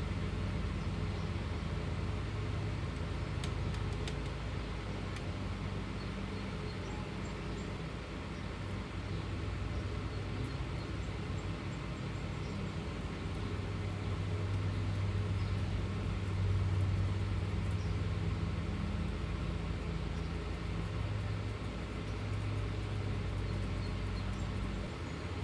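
A steady low mechanical hum, like a motor or engine running, that grows a little louder about two-thirds of the way through.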